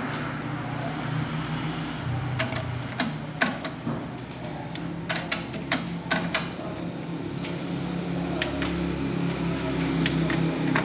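Clicks from the buttons and tape mechanism of a Kenwood A45 stereo system's cassette deck as it is operated: a series of sharp clicks in irregular clusters starting about two seconds in, over a faint low drone.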